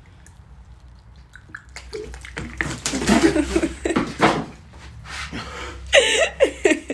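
Water splashing and pouring over a sleeping person, with vocal sounds mixed in, then a person's loud yell near the end.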